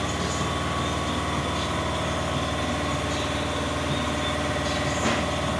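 A motor running steadily with an even mechanical hum, and a brief knock about five seconds in.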